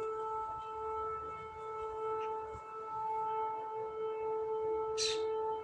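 Civil-defence siren sounding one steady, level tone. A brief rustle comes about five seconds in.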